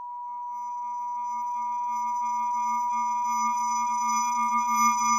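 Steady electronic tones with no speech. A single pure beep-like tone is joined about half a second in by a low hum and several higher tones, and the chord slowly swells louder as the end-card sound.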